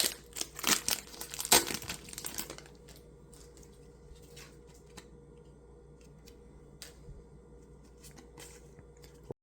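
Foil wrapper of a trading card booster pack torn open and crinkled for the first couple of seconds, then quiet with a few faint ticks.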